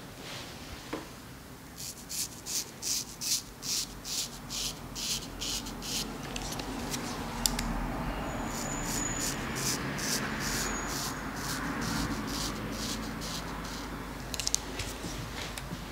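Straight razor scraping lather and stubble off a scalp in quick short strokes, about three a second at first and further apart later, over a steady rustle.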